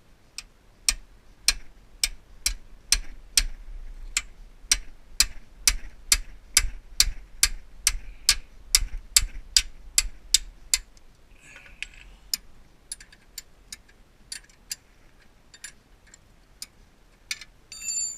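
Ratchet wrench clicking in steady sharp clicks, about two and a half a second, then slower and more irregular after about eleven seconds. It ends in a short buzzing rattle with a metallic ring.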